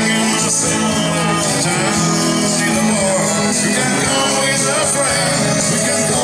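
A country song playing, with a singer over guitar and a steady beat.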